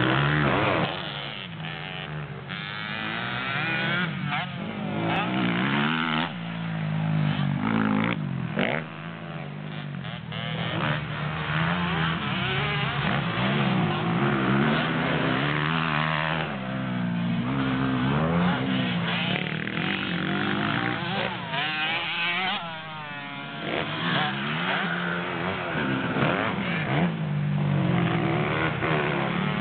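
Several motocross dirt bikes riding round a dirt track, their engines revving up and falling back again and again as they accelerate and shift.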